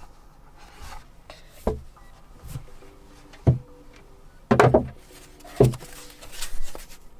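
Cardboard packaging of a keyboard box being opened and handled: rubbing and sliding with several dull knocks, the loudest a cluster a little past four and a half seconds in.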